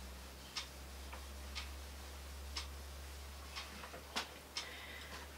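Clock ticking faintly and evenly about once a second, over a low steady hum, with a couple of extra soft clicks near the end.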